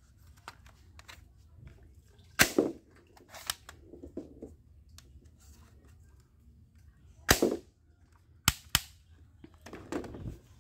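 A green plastic toy pump-action shotgun being worked by hand: a few sharp plastic snaps and clacks, the loudest about two and a half and seven seconds in, with a quick pair of clicks near nine seconds.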